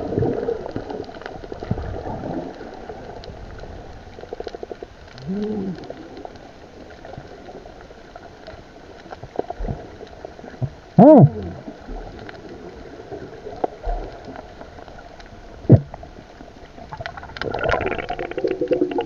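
Underwater sound picked up by a submerged camera: a muffled, murky water-and-bubble noise with scattered small clicks. Through it come a few short muffled pitched calls that rise and fall, the loudest about eleven seconds in and another near the end.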